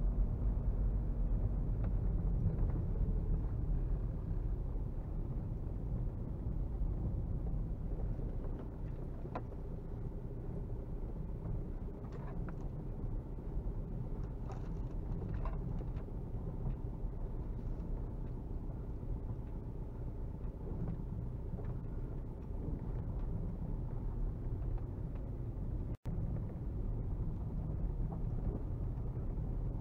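Four-cylinder 1.9 TDI turbodiesel of a VW Golf Mk4 running at low revs, heard from inside the cabin, along with tyre and suspension noise from a rough dirt track. A few light knocks come from the uneven surface midway, and the sound cuts out for an instant near the end.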